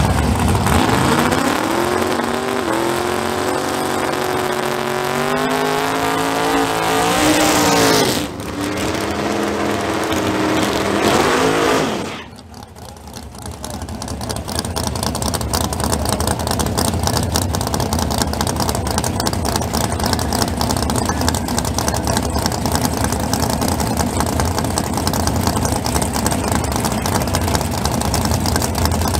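A drag-race car launching and accelerating hard, its engine pitch climbing, dipping about eight seconds in as it shifts gear, then climbing again before the sound cuts away suddenly about twelve seconds in. After that, a loud steady race-engine rumble.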